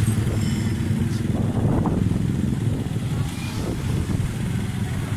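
Steady engine and road rumble from a moving motor vehicle in traffic.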